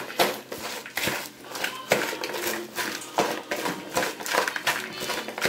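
Caesar salad being tossed in a plastic bowl with salad servers: lettuce leaves and croutons rustling and crunching, with the servers scraping and tapping against the bowl in quick, irregular strokes.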